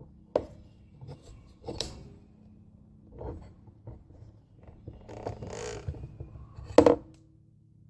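Workshop handling noises of steel throttle-cable wire and hand tools: a few sharp clicks and knocks, the loudest near the end, and a rubbing scrape a little after the middle, as the wire is worked to bend a Z into its end.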